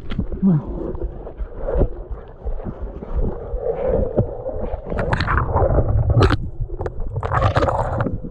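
Sloshing and splashing of someone wading through water, with scattered knocks and louder bursts of splashing about five seconds in and again near the end.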